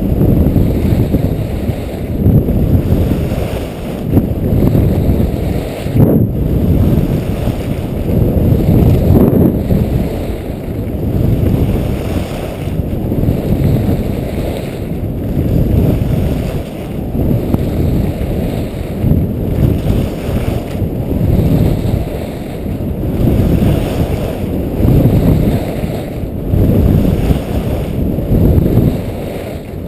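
Wind buffeting a skier's body-worn camera microphone at speed, mixed with ski edges scraping on hard-packed glacier snow. The noise swells and fades about every two seconds as each carved turn is made, and there is one sharp knock about six seconds in.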